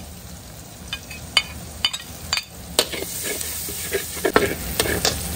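Metal spatula scraping and knocking against a metal wok while sliced shallots and garlic are stir-fried in hot oil. The oil sizzles underneath, and the sizzle gets louder about halfway through.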